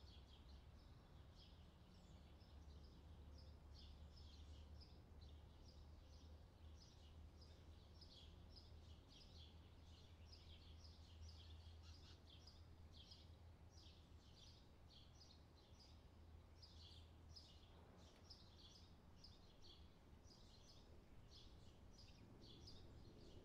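Near silence: faint room hum with soft, high-pitched chirps repeating several times a second throughout.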